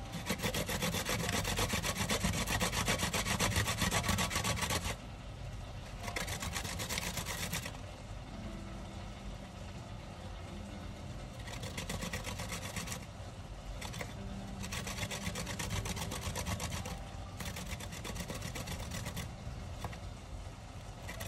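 Fresh ginger being grated on a stainless-steel box grater: a fast rasping scrape, continuous for the first five seconds, then in shorter spurts of a second or two with pauses between.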